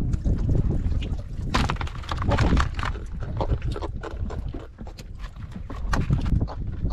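Wind buffeting the microphone on a small fishing boat, with water sounds and scattered knocks and rustles as a caught trevally is handled and dropped into a plastic basket.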